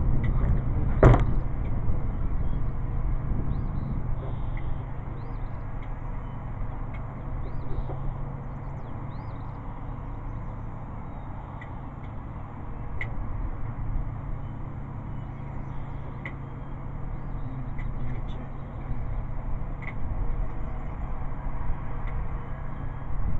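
Wind buffeting the microphone as a steady low rumble, with a sharp click about a second in and a few faint clicks later from a rifle being handled in a bench rest. Faint bird chirps sound now and then.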